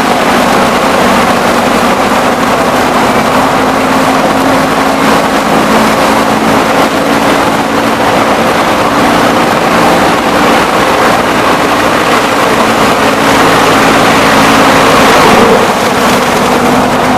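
Sugarcane crushing mill running steadily under power, a loud continuous machine din with a steady low hum; it swells slightly about three-quarters of the way through.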